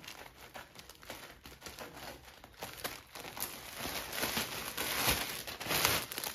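Plastic parcel packaging crinkling and rustling as a courier bag is handled and opened and a garment in a clear plastic bag is pulled out. It is soft at first and grows louder from about halfway, with the loudest crinkling near the end.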